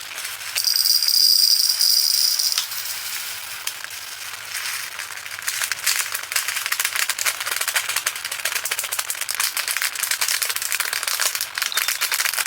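Tiny resin diamond-painting drills being poured and shaken into a small plastic container, a dense rattling patter of fine clicks that fills the second half. Near the start a brief high hiss is louder than the rattle.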